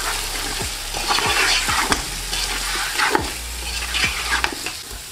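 Lamb pieces, onions and ground spices sizzling in hot oil in a non-stick pot, stirred with a spatula that scrapes and knocks against the pot again and again.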